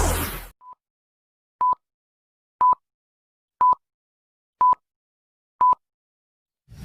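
Synth music cuts off about half a second in, then a run of short, identical electronic beeps at the same pitch sounds once a second, six in all with the first faint: a countdown beep sound effect.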